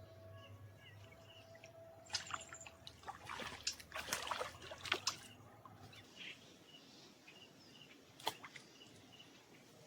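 Water splashing and sloshing in an irregular flurry of strokes for a few seconds in the middle, with a single sharp click near the end. Faint bird chirps repeat in the background.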